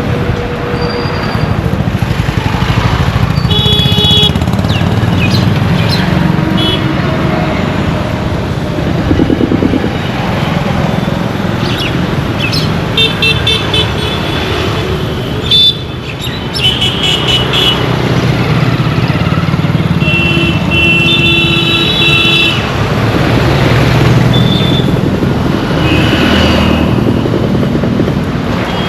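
Road traffic: a steady rumble of engines with car and motorcycle horns honking again and again, some short toots and some longer blasts, the longest about two seconds about three-quarters of the way through.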